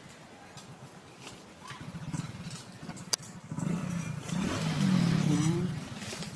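A motor vehicle engine passing: it grows louder about three and a half seconds in, rises in pitch briefly as it revs, and fades near the end. A single sharp click comes just after three seconds in.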